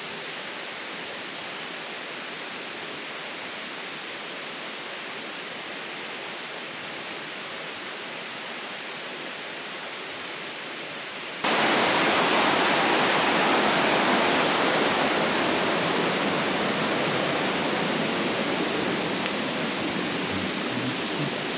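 Steady rushing water noise with no separate events. About halfway through it jumps suddenly to a much louder, fuller rush.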